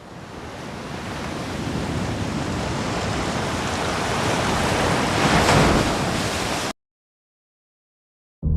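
A rushing noise fades in and grows, loudest about five and a half seconds in, then cuts off suddenly into dead silence. A low sustained musical tone begins just before the end.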